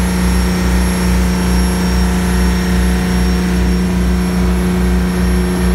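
Fishing boat's engine running steadily under way, a constant low drone with a pulsing throb beneath it, over the rush of the churning wake.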